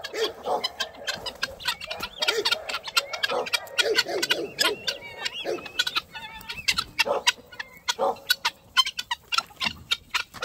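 A free-ranging flock of chickens and guineafowl calling: irregular clucking mixed with many short, sharp calls in quick succession.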